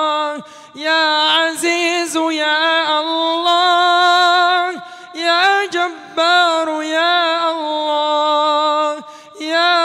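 A single male voice chants the names of Allah ("Ya Allah, ya …") through a microphone in long, melismatic held notes. It breaks briefly for breath about half a second in, again around five seconds, and again near nine seconds.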